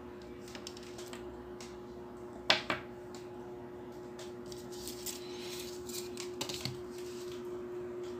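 Drafting tools handled on a paper-covered table: a sharp plastic clack, quickly doubled, about two and a half seconds in, then light taps and a scraping, sliding sound as a clear plastic set square is laid on the drawing.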